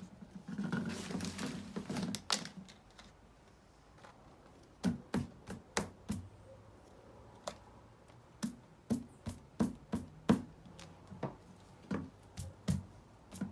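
Parts of a plastic shelving unit being handled and fitted together: a rustling scrape, then from about five seconds in, runs of sharp plastic clicks and knocks, roughly three a second, as pieces are tapped and pressed into place.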